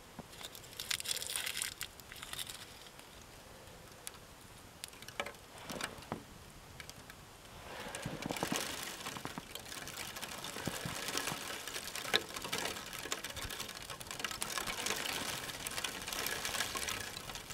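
Small fire of evergreen boughs and twigs crackling as it catches. Scattered snaps and rustles of twigs being handled come first, and the crackling grows denser from about eight seconds in.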